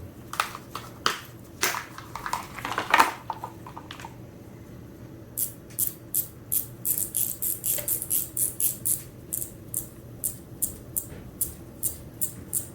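Yellow Croaker fidget toy clicked by hand: a few irregular clicks with a short ring over the first few seconds, then from about five seconds in a fast, steady run of sharp, crisp clicks, about four a second.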